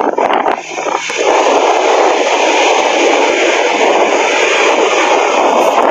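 Strong sea wind rushing over the microphone together with the wash of breaking surf, a steady loud hiss that settles in after a brief lull about a second in.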